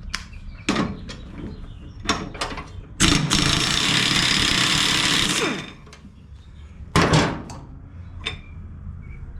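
A power tool runs in one loud burst of about two and a half seconds, starting about three seconds in, then winds down with a falling pitch. Sharp metallic clinks and knocks of hand tools on the mower deck come before and after, one louder knock about seven seconds in.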